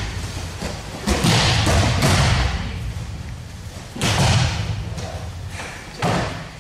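Bodies slamming onto judo mats as partners are thrown and break-fall: about four heavy thuds in a few seconds, each trailing off briefly.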